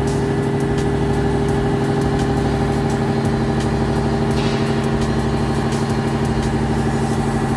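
The carrier (lower) diesel engine of a Tadano Faun ATF 70-4 all-terrain crane idling steadily at an even pitch.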